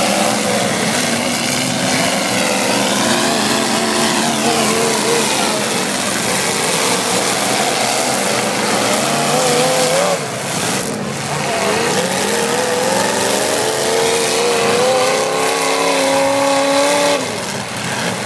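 Demolition derby cars' V8 engines revving and running, their pitch rising and falling. Starting about twelve seconds in, one engine's note climbs steadily and then drops off sharply near the end.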